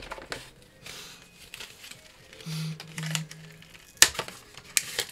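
Plastic wrappers of Pokémon card packs rustling and crinkling as they are handled, with two sharp crinkles about four seconds in and near the end.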